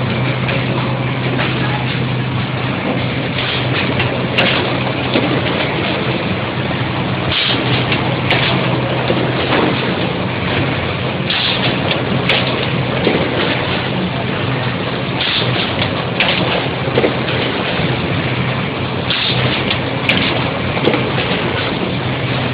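Automatic case making machine running, a steady loud mechanical din. Short sharp hisses and clacks come in pairs about a second apart, repeating roughly every four seconds as the machine cycles.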